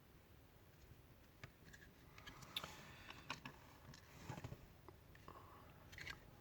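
Faint, scattered clicks and short scrapes of small hard parts being handled and fitted as a hair clipper is put back together.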